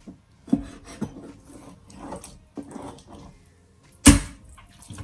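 Knife cutting through raw chicken on a cutting board: irregular scraping and rubbing strokes with a few sharp knocks of the blade against the board, the loudest about four seconds in.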